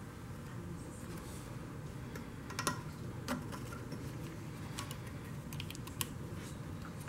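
Scattered light metallic clicks and taps as a gasket plate and water-pump parts are slid down the driveshaft and over the mounting studs of an outboard lower unit, with a steady low hum underneath.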